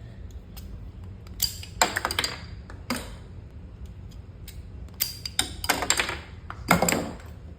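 Hard printed plastic parts of a 3D-printed Mk2 pineapple grenade replica clicking and clattering as it is handled, in four short bursts of sharp clicks.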